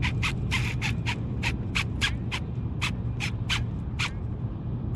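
Fishing reel drag clicking as a big fish, a hooked ray, pulls line off, about three to four clicks a second before stopping about four seconds in. Under it there is a steady low rumble of wind and water.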